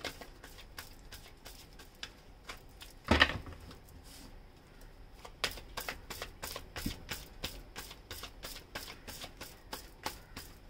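A deck of tarot cards being shuffled and handled by hand: a fast run of crisp card flicks and clicks, with one louder thump about three seconds in.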